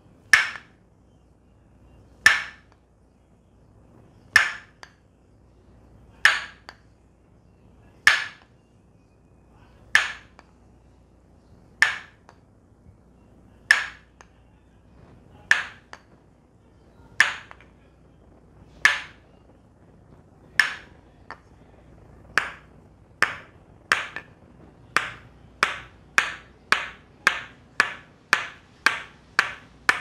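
Tok Sen massage: a wooden mallet striking a wooden wedge held against the back, sharp wooden knocks about two seconds apart, quickening in the last third to about two a second.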